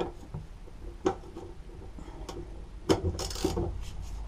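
Separate metal clicks and knocks as a socket ratchet is fitted onto a lawn mower's blade bolt, with a short run of rapid ratchet clicking a little after three seconds in.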